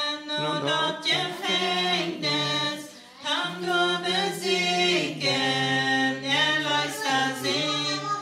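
Unaccompanied voices singing a slow Plautdietsch hymn-like song in harmony, a low part and a higher part holding notes together and changing pitch every second or so, with a brief dip about three seconds in.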